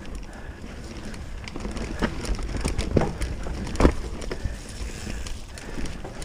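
Commencal mountain bike riding down a dirt trail: wind rumbling on the GoPro microphone, with the clatter of the bike over rough ground. Sharp knocks come about three and four seconds in.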